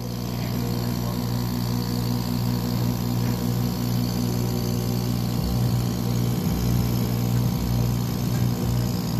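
K40 laser cutter, converted to sinter sugar, running with a steady low machine hum.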